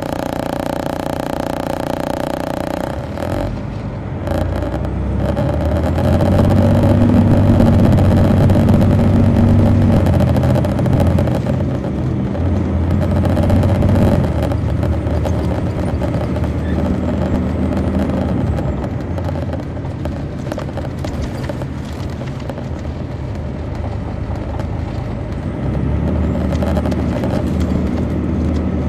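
Detroit Diesel Series 60 diesel engine of a 2003 MCI D4500 coach, driving through an Allison B500 automatic transmission, pulling hard for several seconds, easing off, surging again, then running lighter before picking up near the end.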